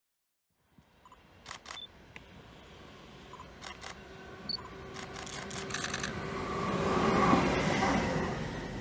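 ÖBB class 1293 (Siemens Vectron) electric locomotive approaching and passing close by on the track. Its running noise builds to a peak about seven seconds in and then begins to fade, with scattered sharp clicks as it draws near.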